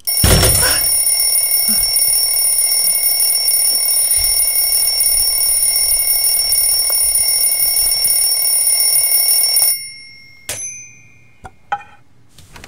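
An alarm ringing loudly and steadily, starting with a sharp pop, then cutting off suddenly after about ten seconds; a few clicks and a short ping follow.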